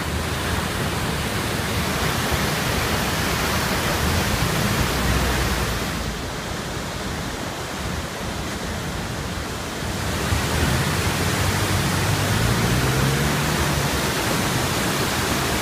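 Muddy river in flood after heavy rains, its fast, churning water rushing past with a loud, steady noise. For a few seconds in the middle the sound turns duller, with less hiss.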